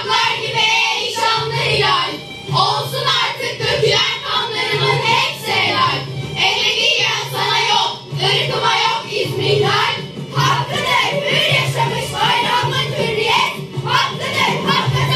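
A group of teenage girls singing together over a recorded backing track with a steady bass beat.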